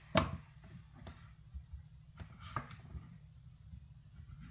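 Knocks and light taps from cutting zucchini with a chef's knife on a plastic cutting board and handling the cut pieces. One sharp knock comes just after the start, followed by a scattering of softer taps.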